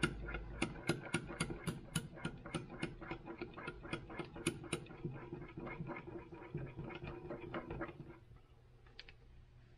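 Stir knife clicking and scraping against the inside of a glass measuring cup, mixing red colorant into liquid soft-plastic (plastisol), about four ticks a second, stopping about eight seconds in. A faint steady hum lies underneath.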